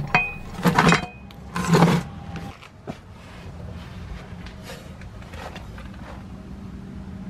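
Two short bursts of scraping and rattling as the lowered spare tire and its metal cable hanger are handled and pulled out from under the car, then a faint, steady low hum.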